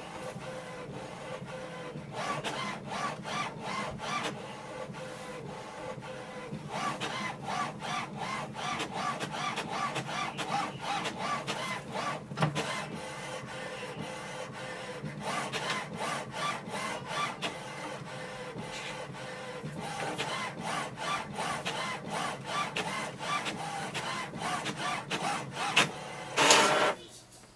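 HP OfficeJet Pro 9015 inkjet printer printing its print-head alignment page: the print carriage shuttles across in quick rhythmic passes over a steady motor hum, in stretches of several seconds with brief pauses between them. A short, louder whirr comes near the end.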